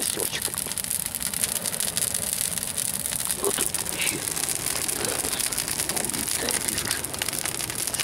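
Large wood bonfire burning, with dense, continuous crackling and popping of the burning logs.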